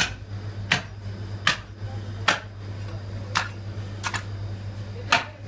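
Heavy forged butcher's axe chopping along the backbone and ribs of a beef carcass: seven sharp chops, about one every three-quarters of a second, over a steady low hum.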